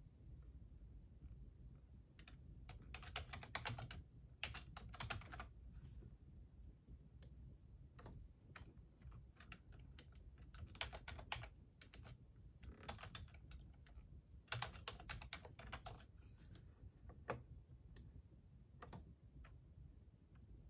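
Faint typing on a computer keyboard in short bursts of rapid key clicks, with single clicks between the bursts.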